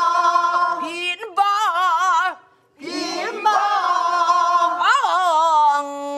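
A small group singing a Namdo folk song (southern Korean minyo) together, unaccompanied, the voices wavering in the wide, heavy vibrato of the style. The singing comes in two phrases with a short breath between, about two and a half seconds in.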